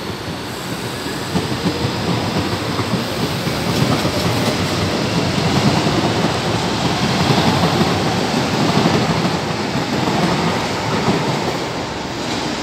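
São Paulo Metro Line 3 electric train passing close by at speed: a steady rumble and rattle of wheels on track, growing to its loudest in the middle and easing off near the end.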